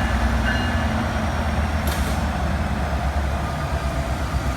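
NJ Transit PL42AC diesel-electric locomotive's EMD 16-710 two-stroke diesel running with a steady low rumble, with rain hissing, and a brief high hiss about two seconds in.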